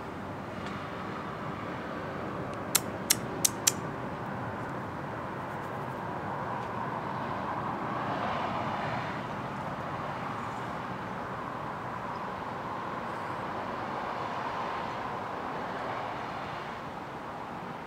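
Steady distant road traffic, swelling a little around eight seconds in as a vehicle passes. Four sharp clicks come in quick succession about three seconds in.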